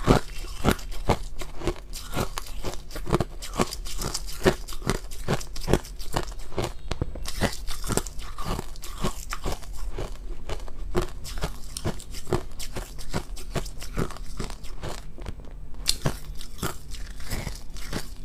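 Close-miked chewing of powdery, crunchy ice: a steady run of sharp crunches, about two or three a second.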